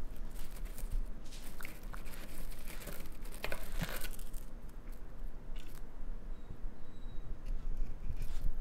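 A raccoon rummaging with its paws through a plastic jar of cheese puffs, with crackly rustling and tapping through the first few seconds. It goes quieter in the middle while the raccoon holds a single cheese ball, and there are more crackles near the end.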